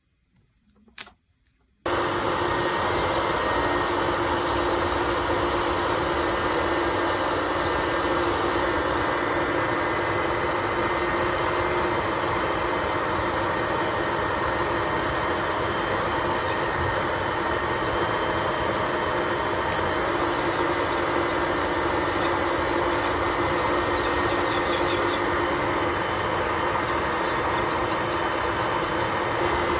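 Electric nail drill switched on about two seconds in after a couple of faint clicks, then running at a steady speed with an even whirring hum.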